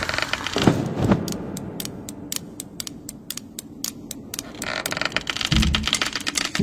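Knitting needles clicking rapidly in a fast, irregular run of light clicks. A louder swell of noise with a low rumble builds near the end.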